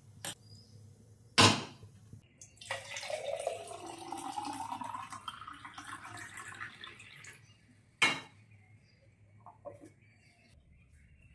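Metal pot knocks, then water poured from a steel saucepan into a glass mason jar for about five seconds, the note rising as the jar fills. A single sharp clink follows about eight seconds in.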